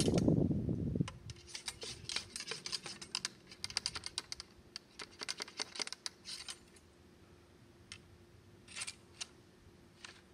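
Steel ramrod of a Brown Bess flintlock musket tapping and scraping in the bore as a .69-calibre round ball is rammed down onto the powder charge: a quick run of light clicks for several seconds, then a few more near the end. A low rumbling noise fills the first second.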